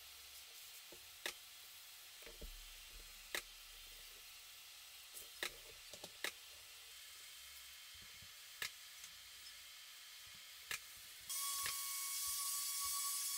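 Scattered light clicks and knocks of tool handling, then about eleven seconds in a power sander hooked to a dust extractor switches on and runs steadily, a thin whine over a hiss.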